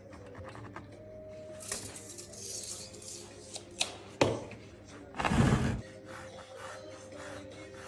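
Woodworking sounds: a few light taps and scrapes, a sharp knock about four seconds in, then a louder noisy rasp lasting about half a second, over faint background music.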